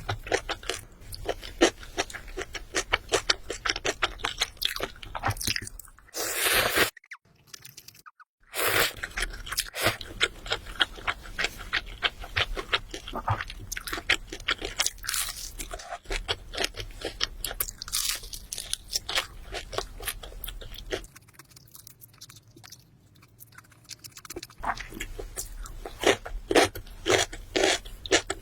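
Close-miked crunching and chewing of crisp fried chicken: dense, irregular crackly bites. About six seconds in there is a brief louder noisy burst, then a second or so of silence, and the chewing goes quieter for a few seconds past the twenty-second mark.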